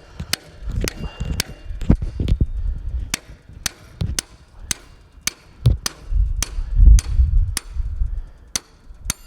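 Hammer tapping a snowblower axle through its new brass bushings, a steady run of sharp taps about two a second, with low rumbling thumps between them.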